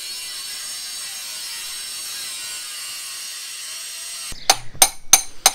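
Angle grinder cutting into a stone door threshold, a steady high whine with a grinding hiss. It stops suddenly about four seconds in, and several sharp metallic knocks of a hammer on a chisel follow, the loudest sounds here.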